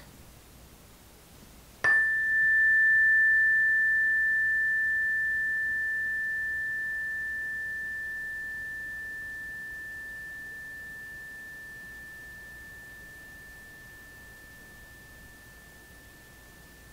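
A hand-held chime struck once with a wooden striker about two seconds in, then ringing as one clear tone that fades away slowly and is still faintly heard near the end.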